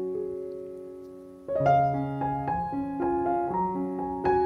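Background music of solo piano. A chord fades away, then a new phrase of notes comes in about a second and a half in.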